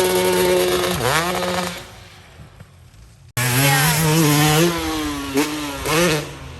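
Dirt bike engine revving, its pitch climbing and dropping as the throttle opens and closes. It falls away about two seconds in, then comes back suddenly with more revving and quick throttle blips near the end.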